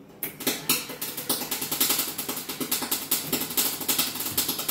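Welder arc crackling in a fast, irregular stream while a steel repair piece is welded into a car's body shell, starting a moment in.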